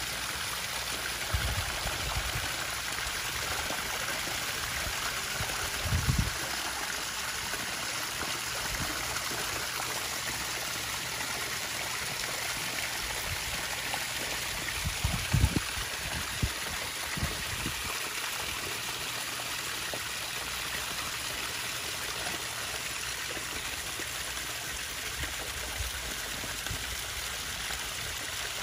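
Steady trickle and splash of water running into a koi pond. A few short low bumps sound near the start, about six seconds in, and around fifteen seconds in.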